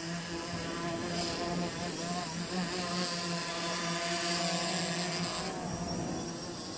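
DJI Phantom 4 quadcopter's propellers and motors buzzing in flight, a steady hum with a slight waver in pitch; the lower part of the hum drops away and the tone changes about five and a half seconds in.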